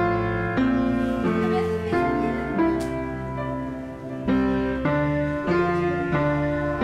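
Background music: slow piano-like keyboard notes, each struck with a sudden start and left to ring and fade, changing about every half second to second.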